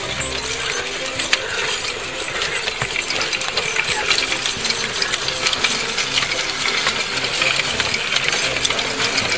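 Heavy horses' harness and trace chains clinking and jingling continuously as the team pulls a horse-drawn plough through the soil.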